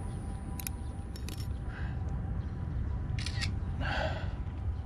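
Smartphone camera shutter clicking: several short, sharp clicks, two of them close together in the second half, over a steady low rumble. A brief louder noise comes near the end.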